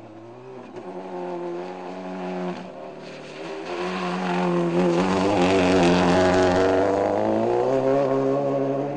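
Subaru Impreza rally car's turbocharged flat-four engine driven hard past on a muddy stage. The engine note dips briefly about two and a half seconds in, then the engine gets loudest as the car passes close by and tyres throw up mud and gravel. The note drops and fades as the car pulls away near the end.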